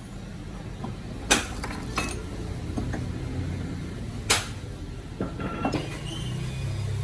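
Sharp knocks and clinks of tools and parts being handled during repair work: two loud knocks about three seconds apart, a few lighter clicks, and a low steady hum underneath that grows louder near the end.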